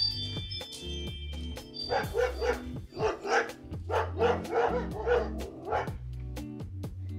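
Dogs barking in a quick run of about a dozen sharp barks, from about two seconds in until near the end, over background music.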